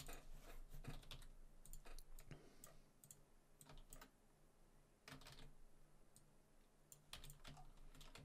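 Faint, irregular clicking of a computer mouse and keyboard keys while drawing with the pen tool.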